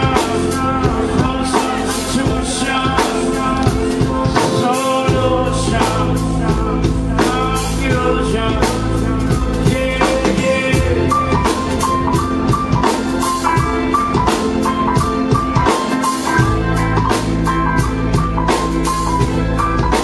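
A live rock band playing: electric guitar, bass, drum kit and keyboards, with a man singing through the first half. From about halfway an instrumental passage takes over, with a repeating high melodic line over the bass and drums.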